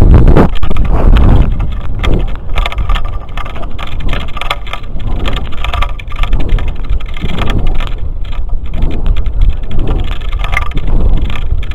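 Wind rushing and buffeting over the microphone of a model rocket's onboard camera as the rocket descends, a loud, uneven rumble with no engine sound.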